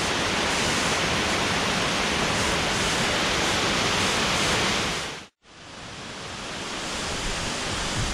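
Steady rush of a multi-tiered waterfall. About five seconds in the sound cuts out abruptly, then fades back in quieter and slowly grows louder again.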